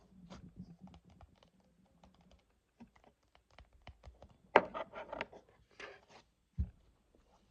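Fingers tapping on a desk in quick, irregular clicks, with a denser, louder run of taps about halfway through and a low thud near the end.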